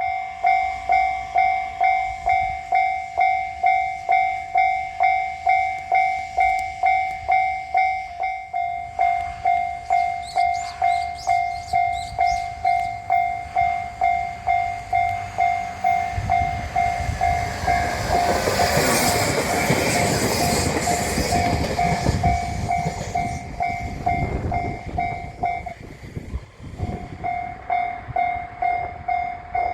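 Japanese railroad crossing warning alarm ringing in an even, repeating tone, a little under two strikes a second. A train passes through the crossing, its rumble and wheel noise building from about halfway and loudest around two-thirds of the way in. The alarm stops just after the train has gone by, then starts ringing again about a second later.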